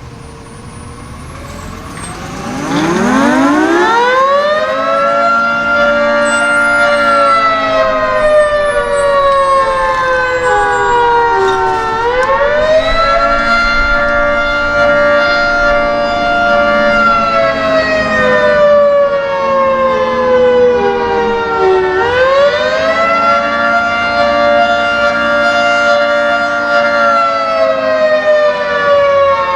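Federal Signal 3T22 three-tone fire siren sounding a wail signal: a couple of seconds in it winds up quickly from low pitch to a held chord, then slowly falls and winds back up, cycling about every ten seconds.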